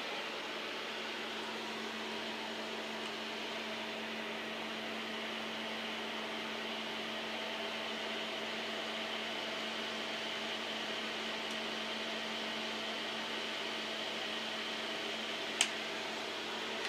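Cooling blower of an air-cooled argon ion laser running steadily: an even whir with a low hum in it. A single sharp click sounds near the end.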